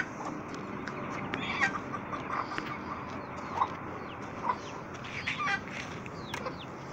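Backyard chickens clucking and giving short calls at intervals, with scattered brief high chirps.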